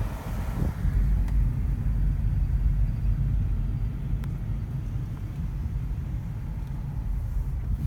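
Steady low rumble of a car driving slowly, engine and road noise heard from inside the cabin.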